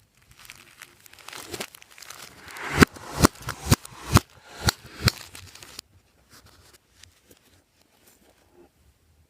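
Clear slime being mixed and squeezed by hand: crinkly crackling, then a run of sharp pops about three to five seconds in, settling into faint small squishes after about six seconds.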